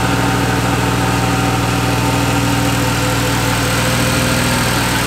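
Mercedes 190E's 2.6-litre M103 straight-six idling steadily on its own on a newly wired standalone EFI engine management system, running smoothly.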